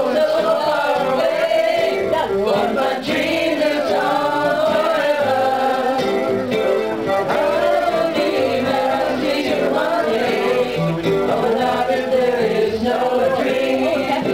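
Piano accordion playing steady chords while a group of voices sings along.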